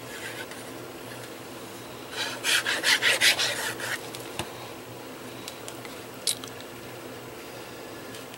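Fine-tipped plastic squeeze bottle of liquid glue drawn in quick strokes across cardstock: a run of about eight scratchy rubs lasting under two seconds, followed by a few small paper clicks as the glued panel is handled.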